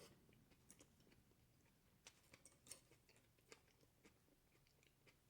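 Near silence, with a few faint wet clicks of a person chewing food with the mouth close to the microphone.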